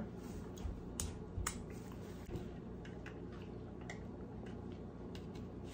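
Quiet eating sounds: chewing and mouth noises, with scattered soft clicks.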